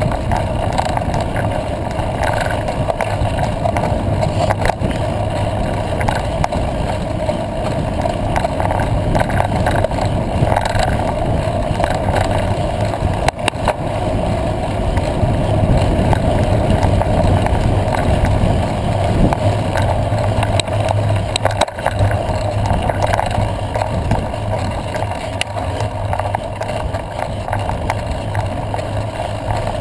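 Steady rolling noise of a bicycle ridden along a dirt road, heard from a camera on the moving rider: tyres rumbling on the packed dirt and gravel with the bike rattling.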